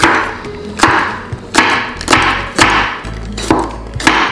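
A chef's knife slicing a jalapeño pepper into rings on a wooden cutting board. There are about seven even strokes, each a knock of the blade on the wood with a crisp crunch through the pepper.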